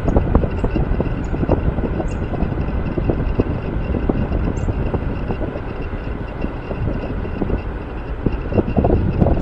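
Wind buffeting the microphone while riding a Swagtron EB7 Plus electric bike at about 16 mph, with steady road rumble and many small knocks and rattles from the bike over the pavement.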